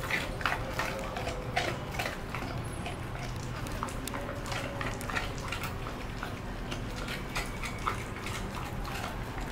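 A pit bull chewing and gnawing on a cow's foot: irregular crunches and sharp clicks of teeth on hide and bone.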